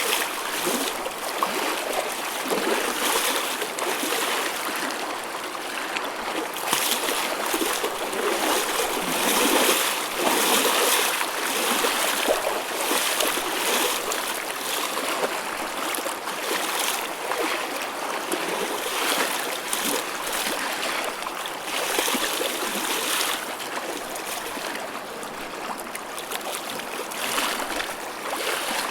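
Choppy ocean waves breaking and washing, a continuous hissing surf that swells and eases every few seconds.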